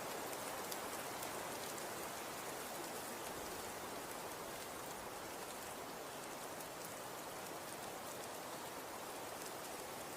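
Steady wind in a snowstorm, an even rushing with faint scattered ticks of blown snow or ice grains.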